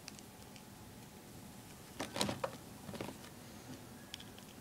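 A few small clicks and clatters of plastic LEGO pieces being handled and set down on a wooden table, the loudest cluster about two seconds in.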